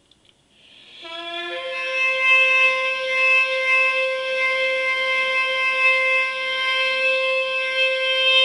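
A trumpet blast: a brief lower note stepping up into one long, steady held note that swells in over the first second or two.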